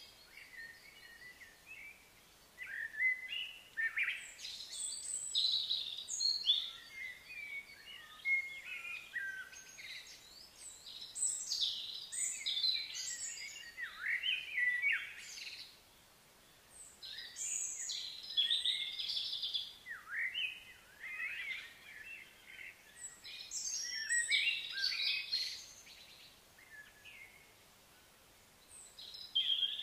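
Birds chirping and singing in bouts of a few seconds, with short lulls in between, over faint outdoor background noise.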